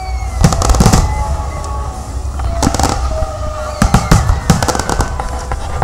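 Display fireworks going off in quick volleys of sharp bangs and crackles, in three bunches a second or more apart.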